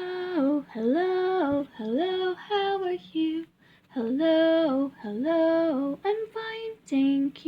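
A woman singing a melody in short phrases of held notes, with brief pauses between phrases.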